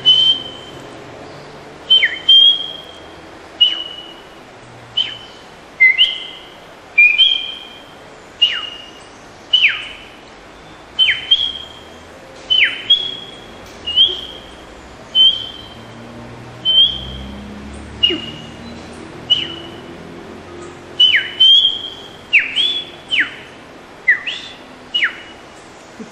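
A person whistling an imitation of the brown trembler's call: a string of short, high whistled notes, one every second or so and sometimes in quick pairs. Each note has a sharp drop in pitch.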